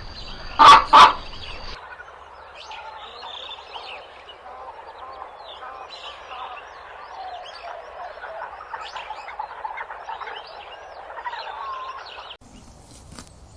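A chicken calls loudly twice in the first second. Then comes a dense chorus of many small animal calls overlapping in a continuous chatter, which cuts off abruptly near the end.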